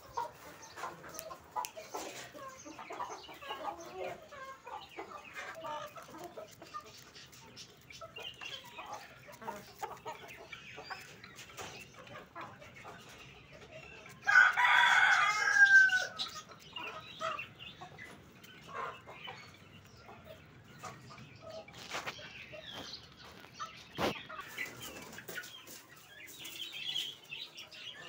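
Aseel chickens clucking and calling in short scattered notes, with one loud rooster crow of about two seconds halfway through that falls away at its end.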